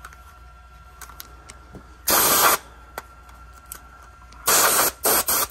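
A can of Dust-Off electronics duster giving blasts of compressed air onto a Digital 8 camcorder tape cassette to blow off dust. There is one blast of about half a second about two seconds in, then three short blasts in quick succession near the end.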